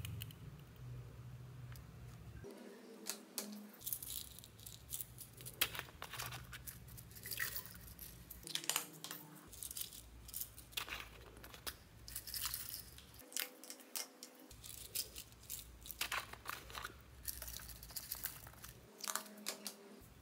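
Sequins shaken out of small plastic jars onto slime in a plastic tray: a scatter of light, irregular clicks and rattles.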